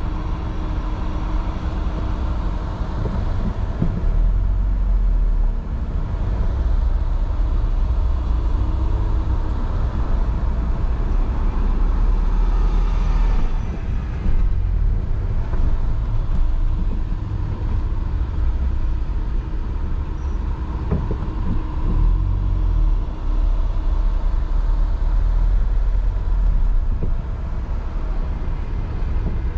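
City street traffic in slow-moving congestion: a steady low rumble of engines and tyres, with a brief hiss about halfway through.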